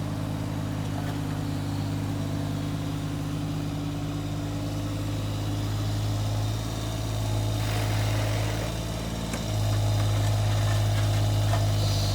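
Vehicle engine running steadily with a low, even note; it gets louder about nine and a half seconds in as it picks up revs.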